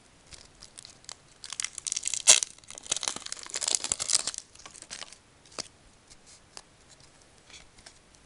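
Packaging on a pack of Pokémon trading cards being torn open by hand: dense crinkling and tearing for about three seconds, with one sharp snap about two seconds in, then a few light crinkles as the wrapper is handled.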